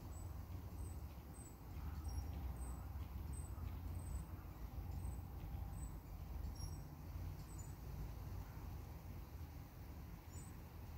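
Low rumble of wind on the microphone, with a faint, very short high chirp repeating about every two-thirds of a second.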